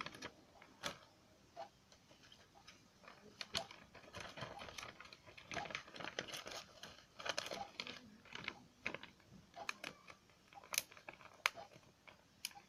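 Plastic zip-lock bag crinkling and crackling in irregular clicks as it is handled to bag a squishy toy.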